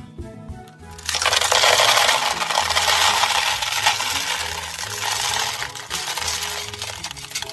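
Candy-coated chocolates pouring out of a plastic container into a plastic toy bathtub: a dense, steady clatter of many small hard candies. It starts about a second in and eases off near the end, over quiet background music.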